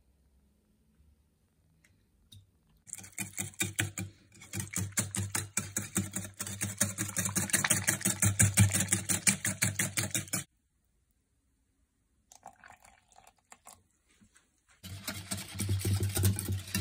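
Wire whisk beating yogurt in a glass bowl: a rapid, even clatter of the wires against the glass. It starts about three seconds in, cuts off suddenly around ten seconds, and starts again near the end.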